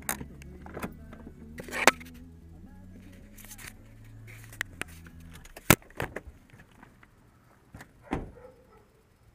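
Handling noise on a helmet-mounted GoPro as it is picked up and carried: sharp knocks and scrapes against the camera, the loudest about two seconds in and just before six seconds. Low music plays under the first half and stops about halfway.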